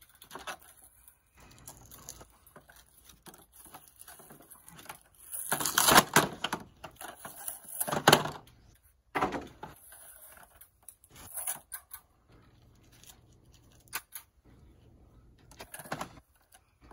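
A cardboard shipping box being pulled open and handled, with two loud bursts of cardboard rustling and tearing about five and eight seconds in. Between them come scattered clicks and knocks of plastic coin storage boxes being lifted out and set on the counter.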